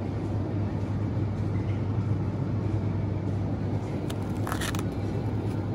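Steady low hum of a supermarket's open refrigerated display cases, with a short rustle about four and a half seconds in.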